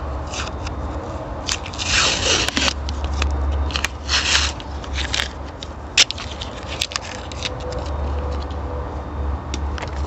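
Close-up scraping and crackling handling noises in short bursts, with a few sharp clicks, over a steady low rumble.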